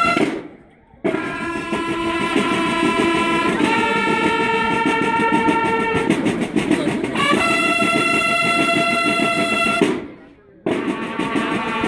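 A banda de guerra of bugles and snare drums playing a regulation bugle call (toque reglamentario): the bugles sound long held notes in unison, changing pitch every few seconds, over a continuous snare drum roll. The whole band stops short twice, just after the start and about ten seconds in, and comes back in under a second later.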